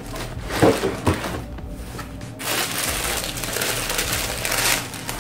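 Cardboard shoe-box lid coming off with a couple of knocks, then crinkly tissue paper rustling and crackling as it is pulled open from around the sneakers, starting about halfway through.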